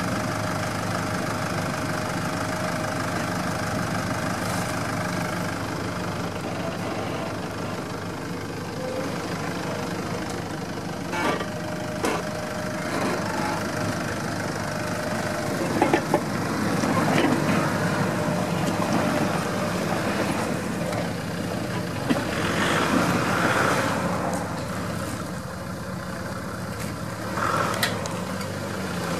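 Jeep Wrangler engine running steadily at low revs while off-roading, with scattered knocks and clunks and a few short louder swells, the sharpest knocks about halfway through.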